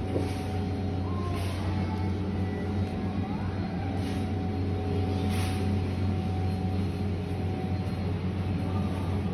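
Steady low hum of a large store's background ambience, with faint distant voices now and then and a few soft rustles.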